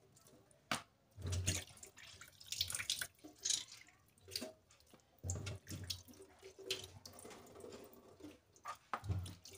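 Water squeezed by hand out of washed raw chicken pieces, splashing and dripping into a stainless-steel sink in irregular short bursts.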